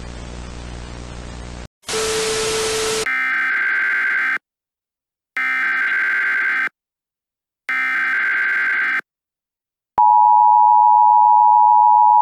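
Emergency Alert System broadcast tones: after a stretch of static hiss with a low hum and a brief louder burst of hiss, three screeching digital SAME header data bursts sound about a second apart. About ten seconds in, the steady two-tone EAS attention signal begins.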